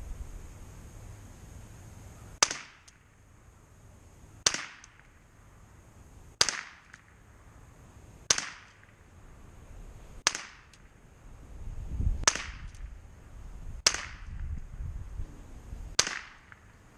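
Savage .22 rifle firing eight shots, one about every two seconds, each a sharp crack with a short fading tail, as a group is fired at a target.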